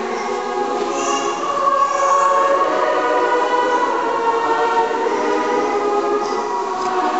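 A large congregation singing together in long held notes, many voices blending in a big reverberant hall.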